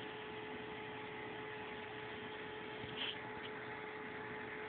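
Steady whine from a Prusa Mendel I2 3D printer's Y-axis stepper motor over a low hiss, with one short high squeak about three seconds in.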